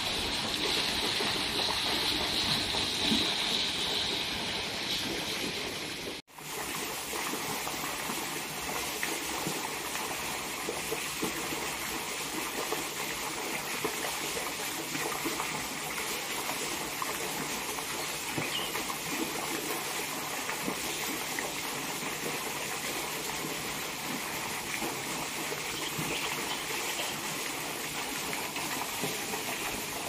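Garden wall fountain spout pouring water into a swimming pool: a steady splashing and trickling. The sound cuts out for a moment about six seconds in, then carries on unchanged.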